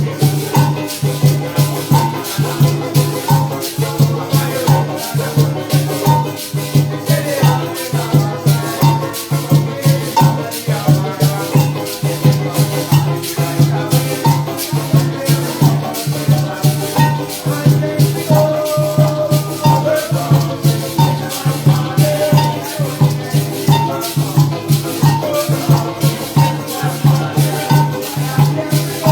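Parang band playing an instrumental passage: maracas shaking a fast, even rhythm over plucked string melody and a steadily pulsing bass.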